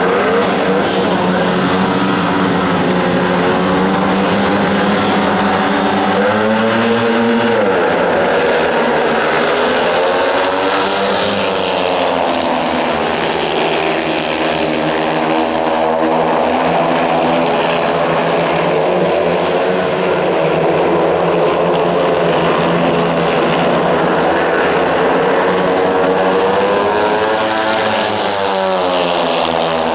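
Several speedway motorcycles, single-cylinder 500 cc methanol-burning racing engines, running hard together in a race, their pitch rising and falling over and over as the riders throttle on and off.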